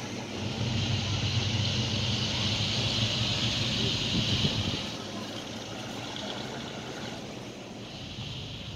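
A vehicle's engine going past, louder for the first five seconds or so and then dropping off to a lower, steady level.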